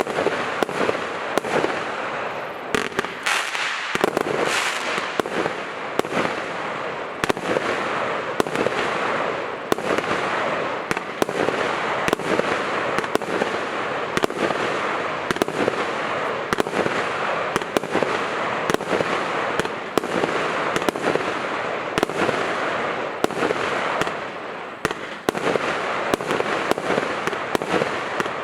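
Katan X901 'Tornado' firework going off: sharp bangs about twice a second over a continuous hissing crackle.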